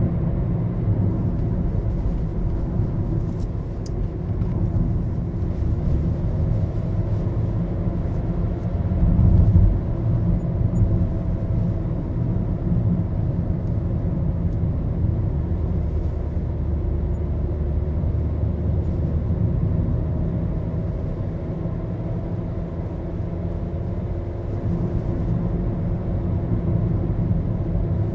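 Maruti Suzuki Baleno being driven, heard from inside the cabin: a steady low rumble of engine and road noise, with a brief louder low thump about nine seconds in.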